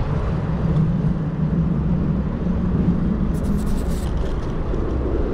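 Wind on the microphone and road rumble from a bicycle rolling along a paved city path, with a hum through the first few seconds and a short run of rapid ticking a little past halfway.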